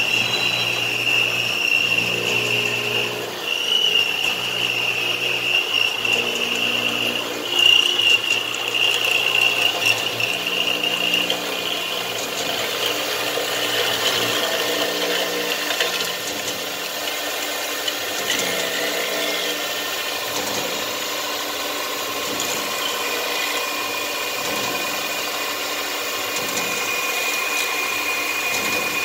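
Enshu SBV400 CNC vertical machining centre milling a metal block under flood coolant. A steady high whine over a low hum for the first ten seconds or so, then a rougher, grainier sound of the cutter chewing through the metal.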